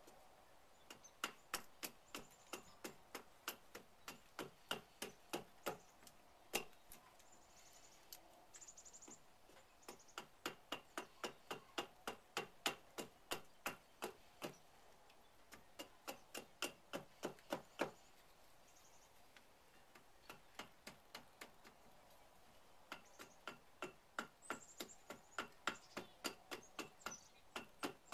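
Hultafors Bruks carving hatchet chopping a green trembling aspen spoon blank on a stump block: quick, short strokes of the blade into the wood, about three a second, in three runs broken by brief pauses.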